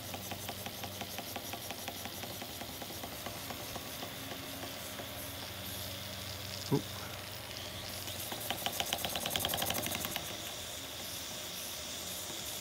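1921 Empire B-30 toy steam engine running throttled down: its single-acting cylinder chuffs in a rapid, even beat over a steady hiss of steam. About two-thirds of the way through, the puffs briefly grow louder and quicker. A single short chirp sounds about halfway through.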